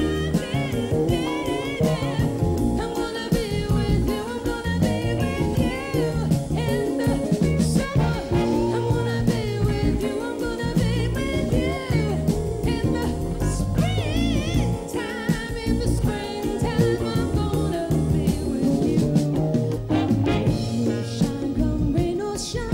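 A woman singing a jazz ballad live, with a jazz band accompanying her. Her held notes carry a wide vibrato.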